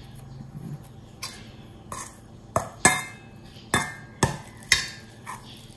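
A metal spoon clinking and scraping against a stainless steel bowl of grated coconut as filling is scooped out. A run of sharp, ringing clinks, mostly in the second half.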